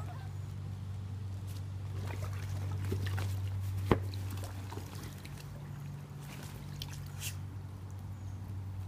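Water sloshing and trickling as a Labrador climbs into an inflatable kiddie pool floating on a swimming pool and settles in it, over a steady low hum, with one sharp click about four seconds in.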